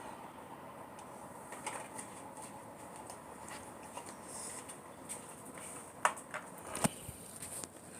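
Faint scattered clicks over low background noise, with two sharper knocks about six and seven seconds in.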